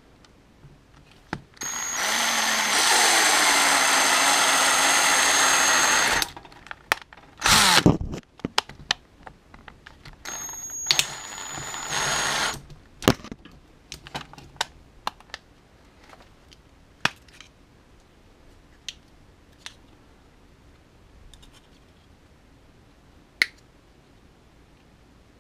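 DeWalt cordless drill boring into a power bank's plastic case. It runs for about four seconds, with its pitch dropping about a second in, gives a short burst, then runs again for about two seconds. Scattered sharp clicks follow.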